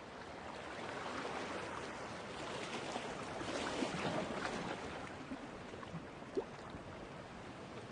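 Rushing noise of wind and water, swelling to a peak about four seconds in and easing off, with a few short blips near the end.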